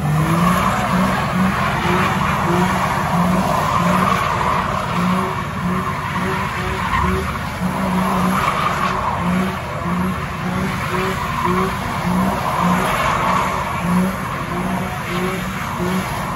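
A car doing donuts: its tyres screech continuously as they spin on the pavement, over an engine note that pulses about twice a second.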